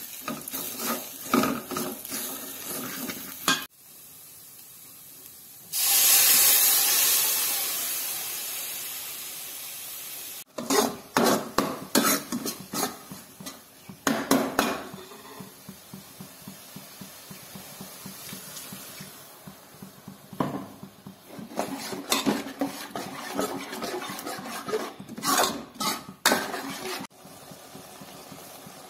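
Steel ladle stirring and scraping spice masala around a metal cooking pot, in repeated scrapes and clicks against the pot. About six seconds in, a loud sizzling hiss starts suddenly and fades slowly over about four seconds.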